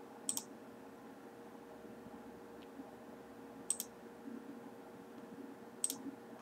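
Three single computer-mouse clicks: one just after the start, one a little past halfway and one near the end. A faint steady hum sits underneath.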